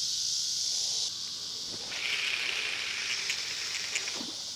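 Insects calling: a steady high-pitched buzz that cuts off about a second in, then a lower, pulsing trill from about two seconds in until near the end.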